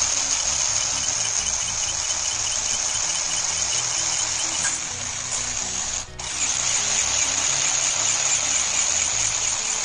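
Electric motor and gearbox of an RC rock crawler whining steadily as its wheels spin in loose sand, briefly dropping out about six seconds in. Background music plays throughout.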